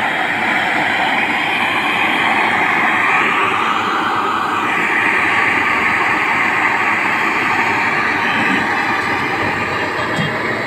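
Handheld gas-cartridge torch burning with a steady hiss, its flame heating an aluminium AC pipe joint for brazing.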